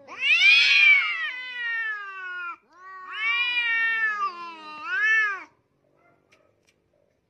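Domestic cats yowling in a face-off, a hostile warning between rivals: a loud, drawn-out caterwaul that rises and then sinks, then a second long yowl ending in a short rise and fall, after which they go quiet.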